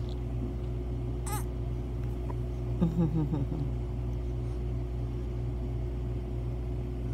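Steady low mechanical hum holding one constant tone, with a short high squeak about a second in and a brief murmured voice sound about three seconds in.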